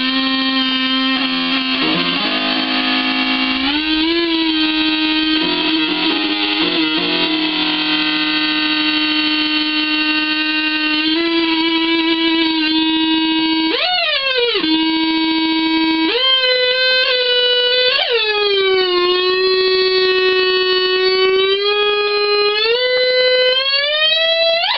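Breadboarded Schumann Two Face fuzz circuit in oscillation mode, putting out sustained buzzy, synth-like tones. The pitch holds, then steps and glides between notes, with a quick swoop down and back up about 14 seconds in and another swoop about 18 seconds in.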